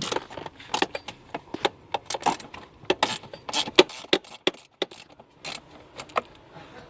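Irregular metallic clinks and rattles of hand tools and loose bolts while parts are being unbolted from a car's A/C evaporator housing.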